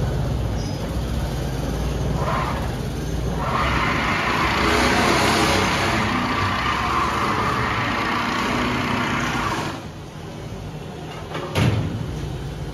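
Mattress tape edge machine's sewing head running as it stitches binding tape around a mattress edge: a steady mechanical hum that grows into a denser, louder rattle for several seconds, then eases off near the end. A single knock follows shortly before the end.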